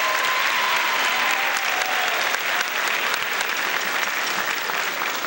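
Audience applauding steadily, with a long held call rising above the clapping in the first second or two.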